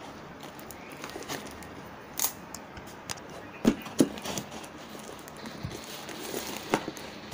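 A parcel being handled and opened: scattered crinkling, tapping and knocks of the packaging at irregular moments, the loudest two knocks close together a little over halfway through.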